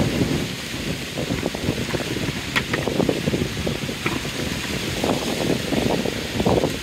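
Gusty wind rumbling on the microphone, with a few light clicks and rattles from a plastic bucket's handle as the bucket is carried.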